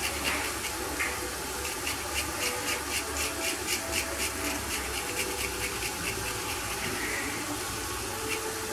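Garlic cloves being grated over a pot in quick rasping strokes, about three or four a second, until about seven seconds in. Onions and chicken sizzle steadily in oil underneath.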